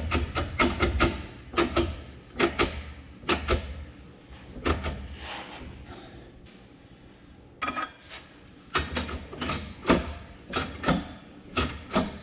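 Irregular metal clanks and knocks from working a shop press to push the timing gear off a tractor engine camshaft held in a clamshell puller, with a quieter stretch in the middle.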